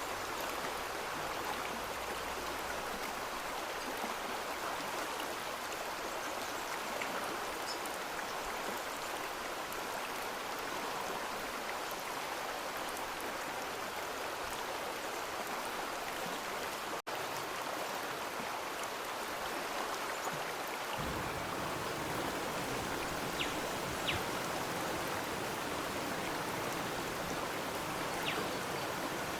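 Steady rush of a flowing stream, cutting out for an instant about two-thirds through and coming back with a little more low rumble.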